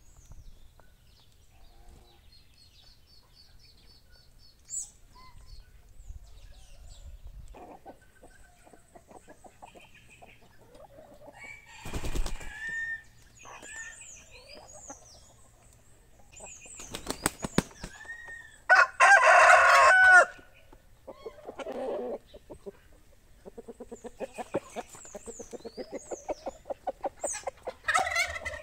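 Domestic chickens at a feeder: a burst of wing flapping about twelve seconds in, a loud chicken call about a second and a half long a little later, then rapid clucking near the end. Small birds chirp faintly throughout.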